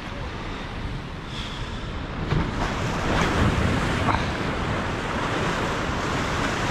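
Ocean surf washing against the rock jetty, with wind buffeting the microphone; the wash swells louder about two seconds in.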